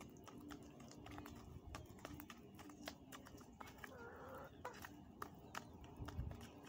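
A fork mashing avocado and banana by hand, heard as faint, irregular clicks and taps. A brief faint call comes about four seconds in.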